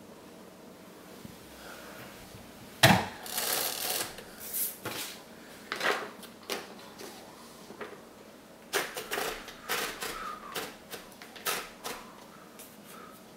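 Smith Corona 5TE electric typewriter in use: after a quiet start, a loud sharp strike about three seconds in runs into about a second of mechanical rattle, followed by irregular key strikes, a pause, and another run of key strikes.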